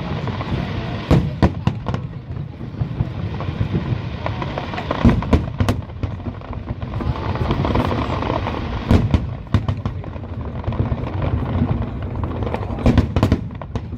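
Fireworks display: aerial shells bursting in sharp bangs at irregular intervals, some in quick pairs, over a continuous rumble and crackle of other bursts.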